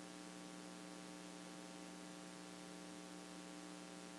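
Faint steady electrical hum with a hiss, from the sound or recording system.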